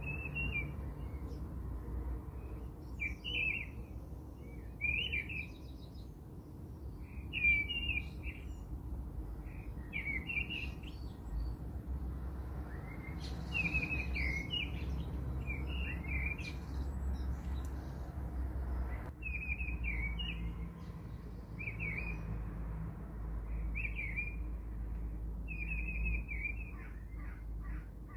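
Small birds chirping in short, quick phrases every second or two, over a steady low rumble.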